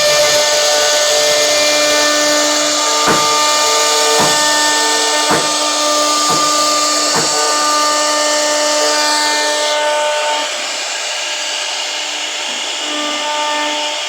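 CNC router spindle running with a steady whine as the bit cuts wood, with five sharp ticks about a second apart partway through. The sound drops somewhat in level about ten seconds in.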